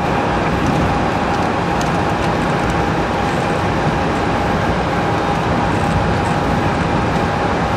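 Steady rumble and hiss heard inside a Boeing 767 as the jet rolls along the ground, with a thin steady whine running through it.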